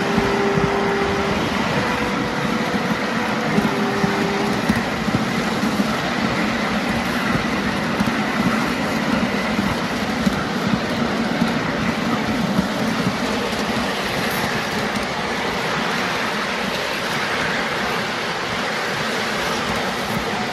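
Miniature ride-on class 31 locomotive and its riding car running along the track: a steady rolling rumble of wheels on rail with frequent small clicks. Short, steady, higher tones sound a few times within the first five seconds.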